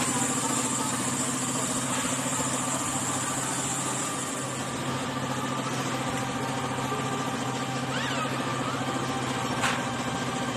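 Suzuki Raider R150 carburettor-type motorcycle's single-cylinder four-stroke engine idling steadily, with a sharp click near the end.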